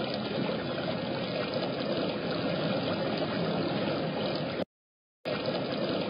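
Small rock waterfall splashing steadily into a pond. The sound cuts out completely for about half a second near the end.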